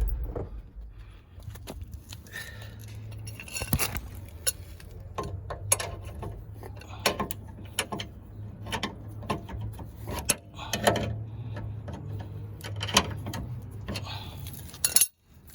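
Jeep Wrangler TJ engine switched off right at the start, its running sound cutting out. It is followed by a string of scattered light clicks and metallic clinks over a faint low hum.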